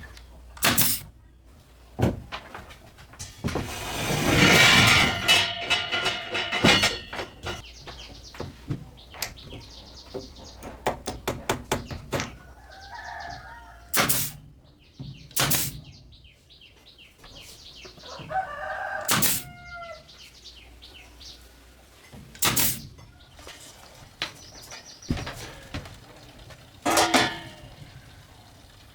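A rooster crows once, a long call about four seconds in, and shorter chicken calls follow later, amid scattered sharp knocks.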